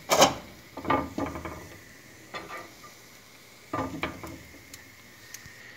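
A utensil scraping and knocking against a frying pan as a pancake and egg are rolled up, a few short strokes with the loudest at the start and about four seconds in, over a faint sizzle.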